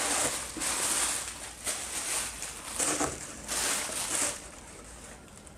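Black plastic wrapping rustling and crinkling in irregular surges as a boxed Funko Pop figure is pulled out of it, dying down about four seconds in.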